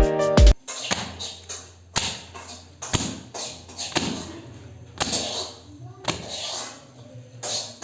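Dull thumps and taps roughly once a second over a low steady hum, after a brief end of background music.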